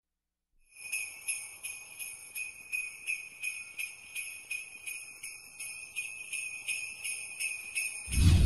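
Sleigh bells jingling in a steady rhythm, about three shakes a second, starting after a short silence. Near the end a deep bass boom comes in, the loudest sound.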